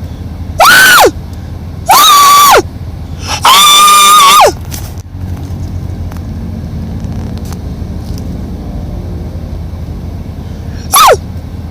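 A pet's loud, high-pitched cries, each rising, holding and then sliding down in pitch: three in the first five seconds, the third and longest about a second, then a short one near the end, over a steady low hum.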